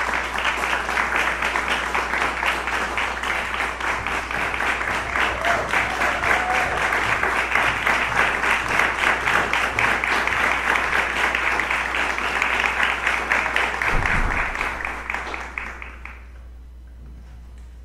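Audience applauding steadily, then dying away about sixteen seconds in.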